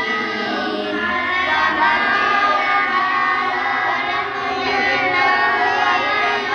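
A group of boys reciting the Quran aloud together in chanted tartil style, many voices overlapping in unison.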